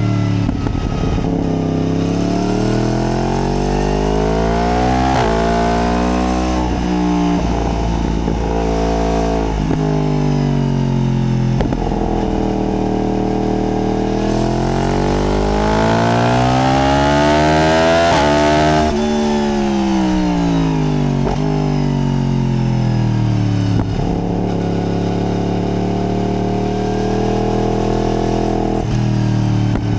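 Yamaha MT-10's crossplane inline-four engine, heard from the rider's seat, revving up and down repeatedly through bends: pitch climbs under acceleration, breaks briefly at gear changes, then falls away as the throttle closes.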